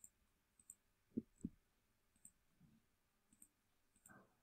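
Faint computer mouse clicks over near silence, with two louder, dull knocks close together a little over a second in.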